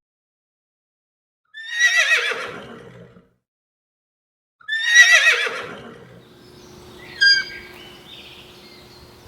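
An animal calling twice with long, quavering calls that fall in pitch, then a short higher call near the end.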